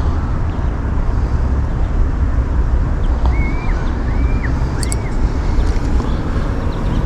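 Steady low rumble of outdoor background noise, with three short, faint chirps rising and falling about halfway through.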